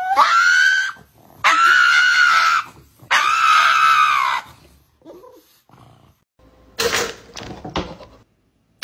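Pug giving three long, high-pitched whining cries, each about a second long and held at a steady pitch. A few short, fainter noises follow near the end.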